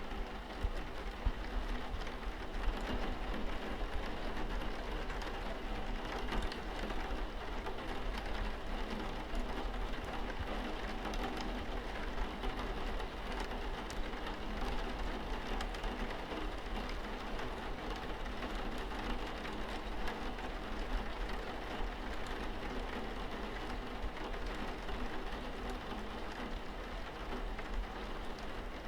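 Steady rain falling, with many individual drops ticking through the even hiss and a low rumble underneath.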